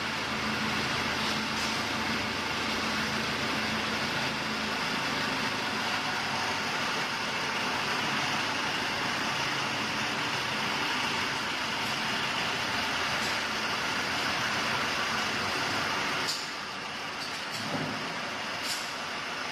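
Shanghai 12V135BZLD1 V12 diesel engine of a 540 kW generator set running steadily. The sound drops a little about three-quarters of the way through, and a few short clicks follow near the end.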